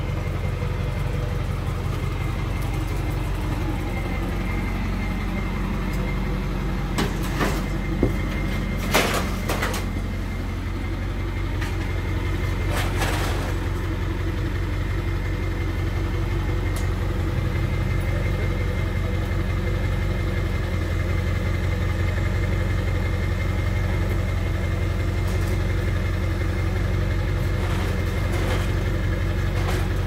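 A truck engine idling steadily. A few sharp knocks cut through it about seven to nine seconds in and again around thirteen seconds.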